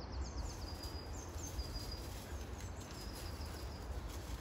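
Small woodland songbirds calling: a quick run of short, high falling notes at the start, then a few thin high notes held briefly, over a steady low rumble.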